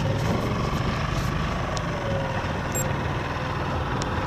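Outboard motor of a small inflatable boat running steadily under way, with a low, even pulsing and a faint engine tone that drifts a little in pitch.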